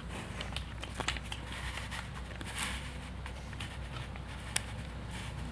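Puppy gnawing on a wooden stick: scattered small clicks and cracks, with one sharper click near the end.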